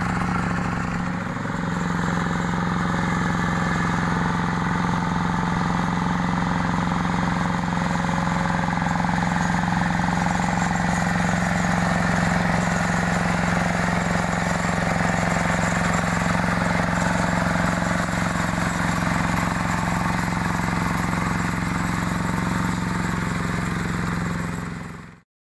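Yanmar hand tractor's single-cylinder diesel engine running steadily while its rotary tiller churns a muddy, grassy rice paddy. The sound cuts off suddenly near the end.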